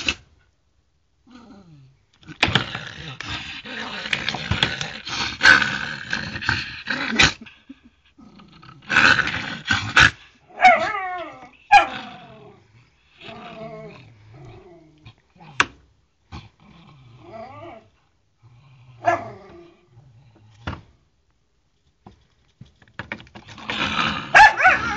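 An angry dog growling in a long, rough stretch, then giving short whines and yelps that slide down in pitch, with a brief pause before the growling starts again near the end.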